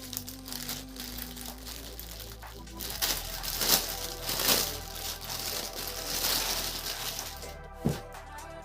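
Packaging crinkling and rustling as a parcel is handled and opened, with a few sharp crackles about three to five seconds in, over quiet background music.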